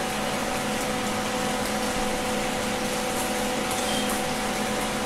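Beef pieces sizzling in hot oil in a frying pan: a steady hiss with faint crackles, over a steady hum.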